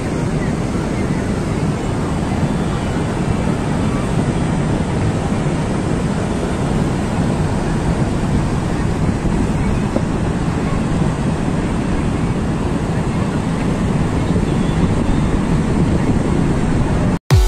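A river in flood rushing in spate: a steady, loud noise of churning floodwater.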